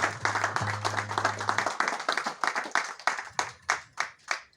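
A small audience applauding, the dense clapping thinning over the last couple of seconds to a few scattered claps before it stops.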